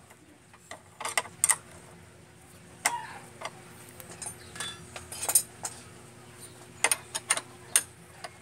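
Small metal clicks and taps from a hand tool working on a motorcycle's handlebar brake master cylinder. They come at uneven intervals, a few alone and some in quick clusters, about a second in, near three seconds, near five and a half seconds and several near seven to eight seconds.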